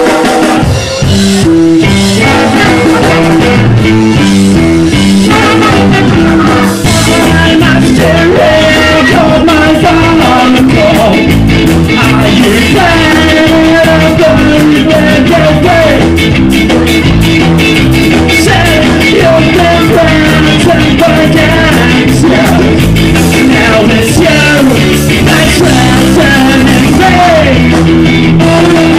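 Live rock band playing loudly: electric guitar, bass guitar, drum kit and trombone, at the start of a fast song.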